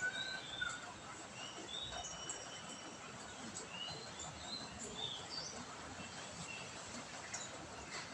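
Birds chirping, short high calls scattered throughout, over a steady hiss of rain or running water.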